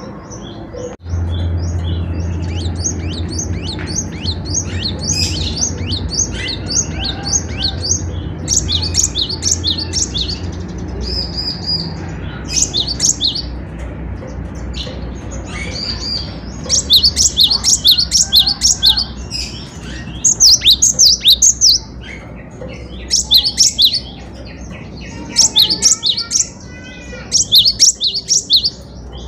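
Cinereous tit (gelatik batu) singing in rapid runs of short, high, repeated chirping notes. In the second half the runs come as loud clustered bursts with brief pauses between them.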